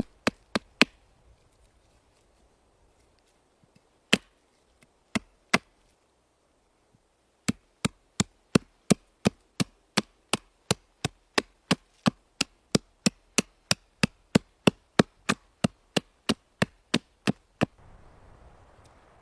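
Sharp chopping knocks of a blade against wood: a few at the start and a scattered handful, then a steady run of about three strokes a second that stops shortly before the end, leaving a faint hiss.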